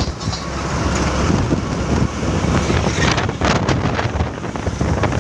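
Steady road and engine noise heard from inside a moving vehicle travelling along a highway, with wind rushing over the microphone and a few brief louder rushes between about three and four seconds in.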